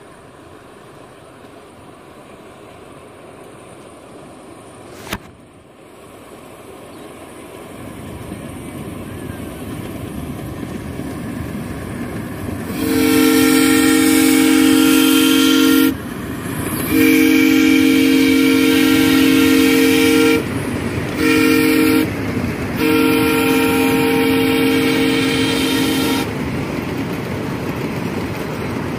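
Whistle of a scale live-steam Southern Pacific Daylight locomotive, a chord of two main notes, blown in the grade-crossing pattern of two long blasts, one short and one long, starting about halfway through. Under it is the rising rumble of the miniature train approaching and running past.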